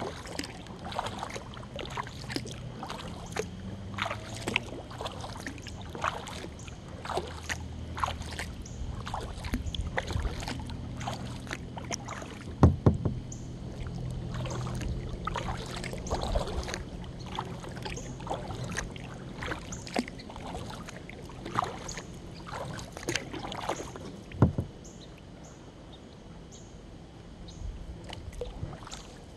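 Kayak paddling on calm river water: the paddle blades dip and splash in a steady run of strokes while water drips off them. Two sharp knocks stand out, one about halfway through and one near the end, and the strokes ease off in the last few seconds.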